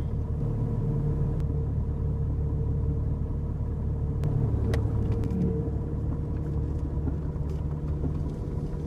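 Jeep Cherokee driving, heard as a steady low rumble of engine and road noise with a constant hum. A few light clicks come around the middle.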